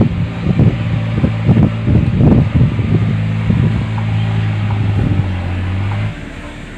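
Wind buffeting the microphone in irregular low thumps over a steady low hum. The hum cuts off suddenly about six seconds in.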